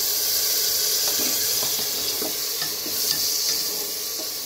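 Minced meat sizzling in an aluminium pressure cooker just after a little water has been added, with a steel ladle stirring and scraping against the pot in scattered light clicks.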